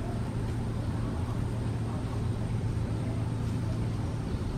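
Steady low mechanical hum over a faint even hiss.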